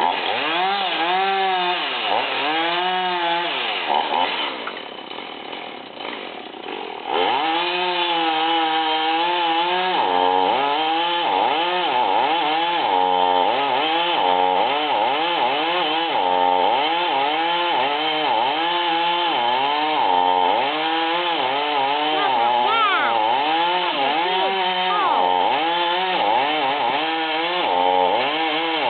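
Chainsaw running, its engine pitch rising and falling over and over as it is revved and loaded in the wood. It drops quieter for a few seconds about four seconds in, then picks back up.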